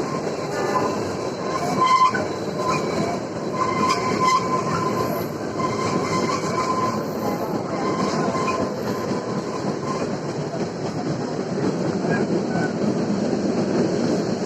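Kalka–Shimla narrow-gauge toy train running, a steady rumble of wheels on rail with a thin, high wheel squeal that comes and goes for most of the first ten seconds.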